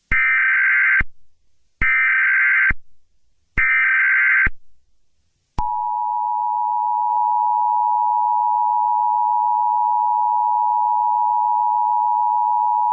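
Emergency Alert System (EAS) alert tones. First come three short bursts of SAME header data, each a harsh, buzzing electronic screech about a second long with brief gaps between them. Then, about five and a half seconds in, the steady two-tone EAS attention signal starts and holds.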